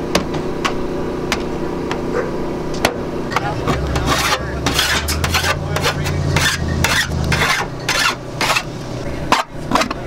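Metal scraper rasping in repeated strokes over a van's sheet-metal roof along the cut edge of a vent opening, clearing off dust and debris to prep the surface; the strokes come faster after a few seconds. A low hum runs underneath.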